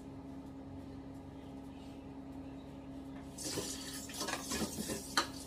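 A faint steady hum, then about three and a half seconds in a kitchen tap starts running into the sink, with dishes clinking and one sharp clink near the end.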